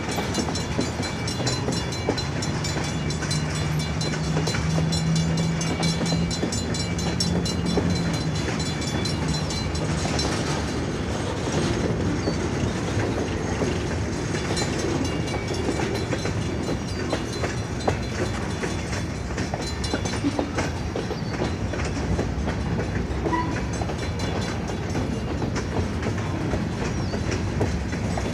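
Freight cars of a train rolling past, a steady rumble of steel wheels on the rails with clickety-clack over the rail joints. A low steady hum sits under it for the first ten seconds or so.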